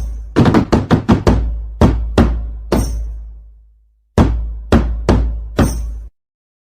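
DJ remix beat in the TikTok 'jedag-jedug' style: heavy booming bass-drum hits that each ring out. A quick run of hits comes about half a second in, a short gap falls near four seconds, and the music cuts off suddenly about a second before the end.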